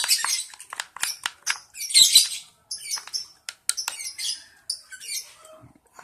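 Young lovebird chicks giving repeated raspy squawks, with short clicks and taps from stirring cereal porridge in a small container.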